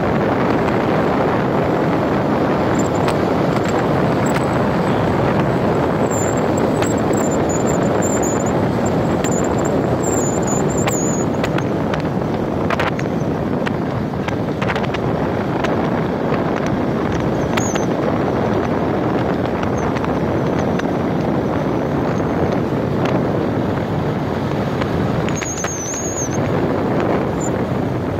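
Steady rush of wind on the microphone and road noise from a moving motorcycle, with no clear engine note above it. A faint high wavering whistle comes in twice, and there are a couple of light knocks about halfway through.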